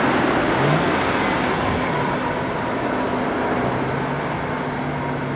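Jet engine noise of a Boeing 767-400ER on final approach with its landing gear down, slowly fading as the aircraft flies away, mixed with road traffic.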